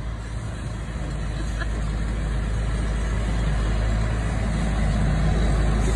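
Truck-drawn leaf vacuum running, a steady low engine drone that grows gradually louder toward the end.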